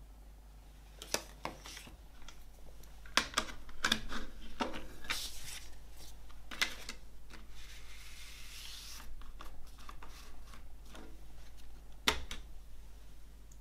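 Plastic CD jewel case and paper booklet being handled: scattered light clicks and taps, a papery rustle of the booklet sliding into the case lid, and one sharp plastic click near the end.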